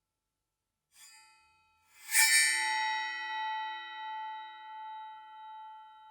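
A metal object struck twice, a light tap and then, about a second later, a hard clang. It rings on with several tones at once, fading slowly with a wavering, pulsing loudness.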